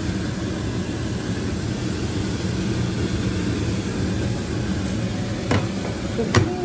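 Steady fan-like whirring hum, with two sharp clicks near the end as tongs knock against the baking dish, the second one louder.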